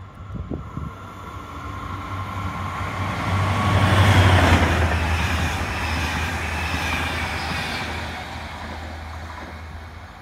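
A train passing the station platform. Its rumble and wheel noise grow louder to a peak about four seconds in, then fade away as it recedes, with a couple of knocks near the start.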